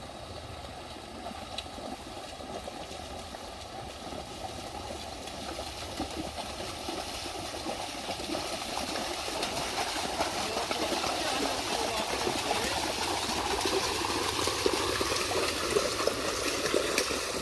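Running water of a shallow creek, a steady rushing that grows steadily louder.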